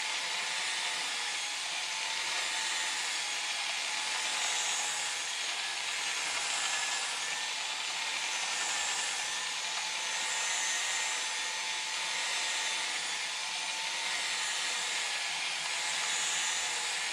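Cordless drill spinning a foam polishing pad loaded with rubbing compound against a plastic headlight lens: a steady whir with the hiss of the pad rubbing, swelling slightly every couple of seconds as the pad is moved over the lens. This is the polishing stage of a headlight restoration, buffing out the haze left by wet sanding.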